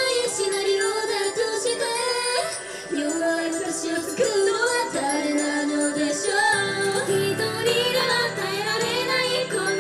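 Japanese idol pop song with a woman singing over a full backing track; a lower part fills in about two-thirds of the way through.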